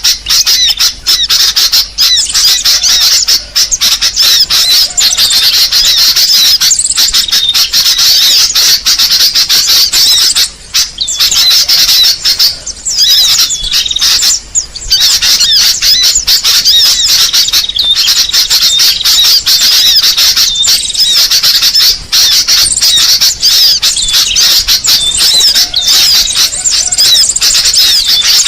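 Dense, continuous, high-pitched chattering and squeaking of many small birds at once, with rapid short chirps overlapping: a bird-luring (pikat) sound meant to draw in other birds.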